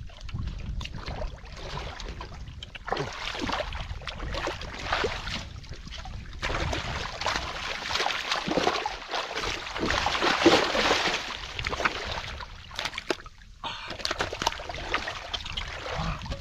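Shallow muddy water splashing and sloshing irregularly as catfish are groped for and grabbed by hand, with the heaviest splashing a little past the middle.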